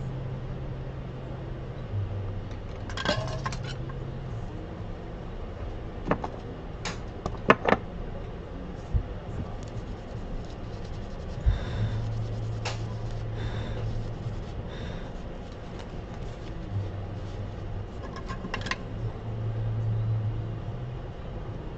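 Scattered sharp metallic clicks and clinks of small repair tools at a soldering bench, over a low steady hum that steps in pitch a few times. The clicks come singly and in quick pairs, the loudest two about seven and a half seconds in.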